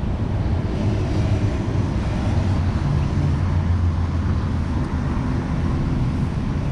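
Steady low rumble of vehicle engines and traffic, a little louder around the middle.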